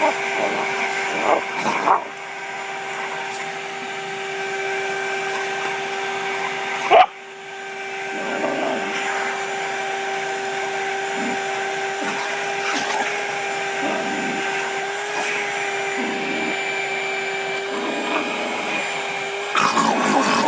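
Vacuum cleaner motor running with a steady hum while boxer dogs bark at it in short bursts, most around the start and near the end. A sharp knock comes about seven seconds in, and the hum dips briefly after it.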